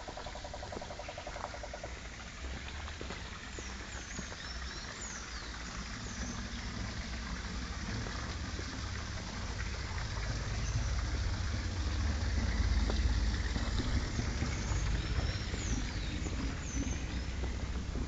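A small forest stream trickling, with a few high chirps twice and a rapid pulsing call in the first second or so. A low rumble on the microphone builds through the middle and is loudest around two-thirds of the way in.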